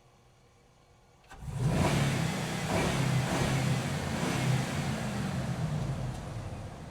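A truck engine comes in suddenly about a second and a half in after a faint click, running loud with some revving, then starts to fade near the end.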